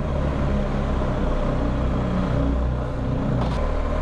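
BMW R1250GS boxer-twin engine running steadily under the rider while under way, its pitch wavering a little. About three and a half seconds in there is a short click and the engine note changes and drops.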